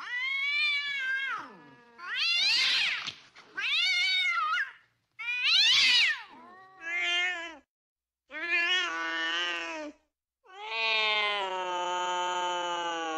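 Domestic cats caterwauling in mating: seven drawn-out yowls that rise and fall in pitch, with short gaps between them. The last call comes near the end and is long and level.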